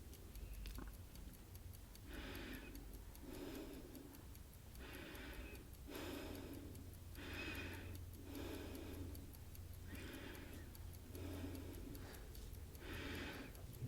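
A clock ticking steadily and faintly, with soft breathing sounds about every second and a half.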